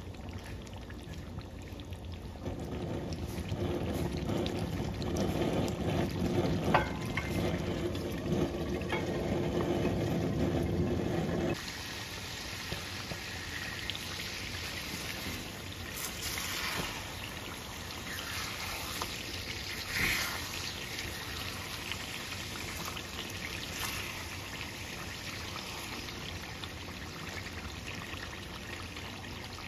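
Chicken curry gravy bubbling as it simmers in a pan. A little under halfway through the sound changes abruptly, and a silicone spatula stirs through the pieces with a few scrapes.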